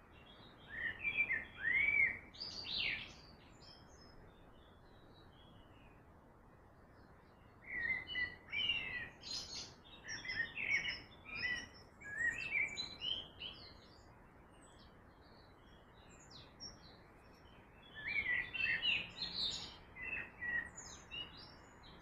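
Songbirds chirping and singing in three bouts of quick, high calls, over a steady hiss of flowing river water.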